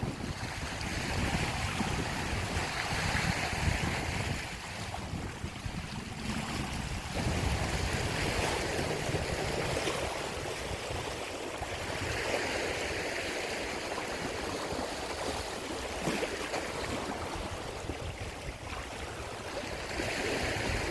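Sea waves washing against the rocky shore, swelling and falling back every few seconds, with wind buffeting the microphone as a low rumble during the first several seconds.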